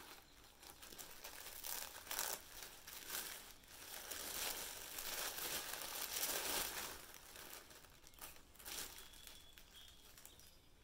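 Brown paper wrapping being handled and pulled open by hand, in a run of irregular rustles that are loudest about halfway through and die down toward the end.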